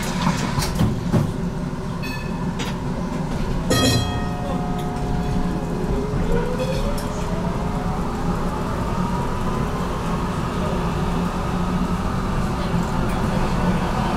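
HTM GTL8 tram running, heard from inside: a steady low rumble of wheels and running gear, a brief ringing tone about four seconds in, then a rising whine from the traction motors as the tram picks up speed.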